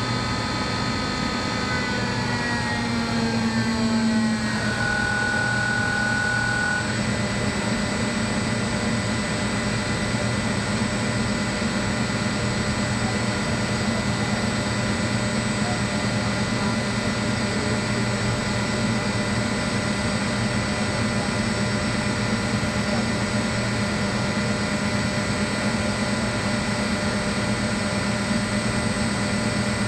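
Rotary screw air compressor running steadily, a dense machine hum with several whining tones. The tones shift in pitch during the first few seconds, then settle.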